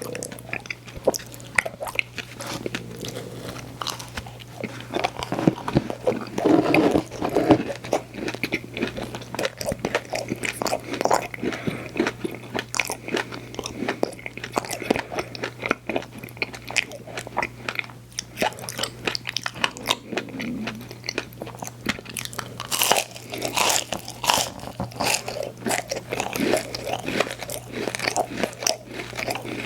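Close-up eating sounds: repeated crunching bites and chewing of a frozen ice cream sandwich, with many sharp crackles throughout.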